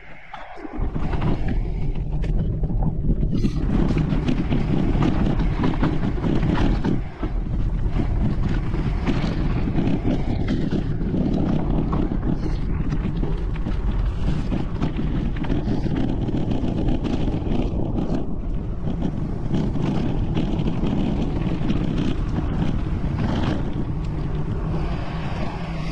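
Wind buffeting the camera microphone of a mountain bike riding fast downhill: a loud, steady rumble that comes in suddenly about a second in, with a brief dip around seven seconds.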